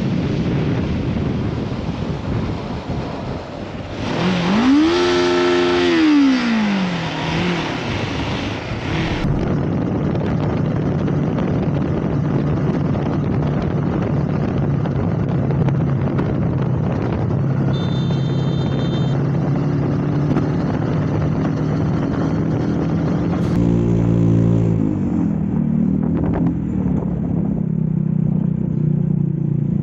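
Motorcycle engines running under way in traffic, heard from on the bikes with road and wind noise, in several clips joined by abrupt cuts. The engine revs up and back down once about five seconds in, and again briefly near the end.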